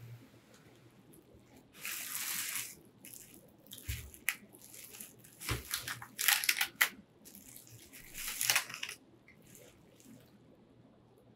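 Plastic bubble wrap crinkling and rustling in several bursts as it is handled, with two soft low thumps around the middle.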